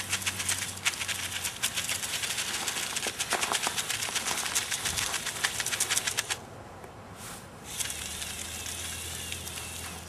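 Remote-controlled LEGO Technic bulldozer driving and turning: rapid plastic clattering of its tracks and gears over the hum of its electric motors for about six seconds. After a brief lull, a steadier motor hum with a faint high whine fills the last couple of seconds.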